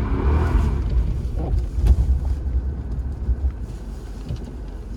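Car engine running with a deep rumble, a rev tailing off in the first half-second and the engine settling lower, with a sharp knock about two seconds in.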